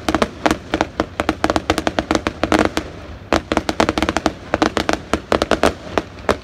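Aerial fireworks bursting in a rapid, irregular string of sharp pops and crackles, several a second, with a short lull about three seconds in.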